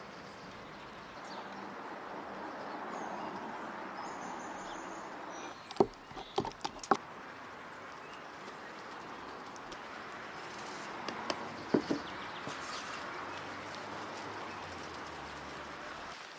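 Steady background hiss with birds chirping now and then. Two short clusters of sharp knocks come about six and twelve seconds in.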